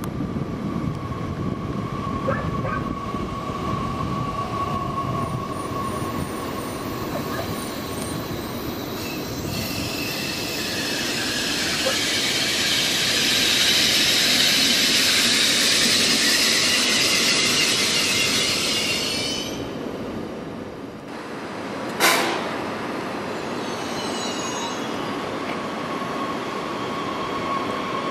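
Train on the rails with its wheels squealing, swelling loudly over about ten seconds midway and then fading. A steady high tone comes before and after the squeal, and one sharp bang follows a couple of seconds after it dies away.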